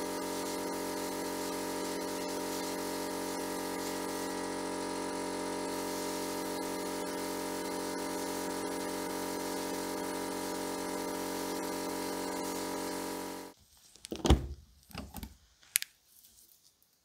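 Steady electric motor hum from the abrasive blasting setup, with the blast air itself off. It cuts off abruptly about 13 seconds in and is followed by a few sharp metallic knocks and clicks.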